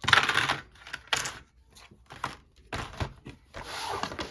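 Handling of small cardboard game boxes and their contents: a rustle, then a few light knocks and clicks, and another rustle near the end.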